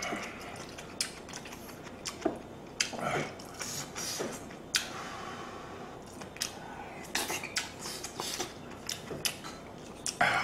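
Eating sounds: a wooden spoon clicking and scraping against a stainless steel stew pot and a small plate, with scattered knocks. A soft slurp of hot stew comes about halfway through.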